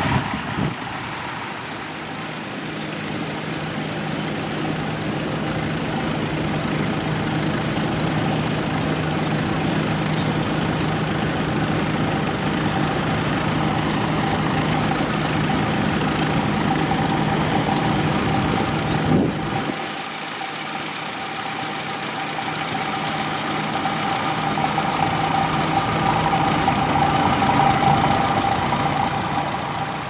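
Grey Ferguson TE20 ('Grey Fergie') tractor engine running steadily under load while pulling a mounted plough. After a cut about two-thirds of the way through, another Fergie grows louder as it approaches, then eases off near the end.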